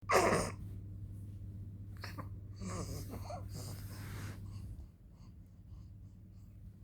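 A person burps loudly at the very start, gives a short burp about two seconds in, then a longer, drawn-out burp with a wavering pitch that stops at about four and a half seconds. A steady low hum runs underneath.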